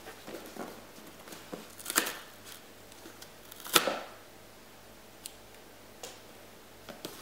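Hands pulling and tearing at the sealing strip on a cardboard gift box: scattered rustles, scrapes and clicks of paper and cardboard, the loudest about two seconds in and just under four seconds in.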